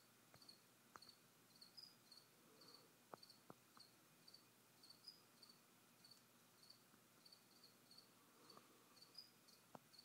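A cricket chirping faintly and steadily, short high chirps about two to three times a second, with a few faint clicks among them.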